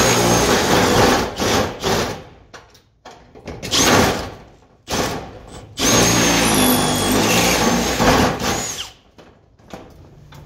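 Milwaukee cordless drill boring into the cylinder of a circular storage-unit lock, the bit grinding through metal with a thin high whine. It runs in three bursts: about two seconds, a short one around four seconds in, and a longer one of about three seconds, then stops.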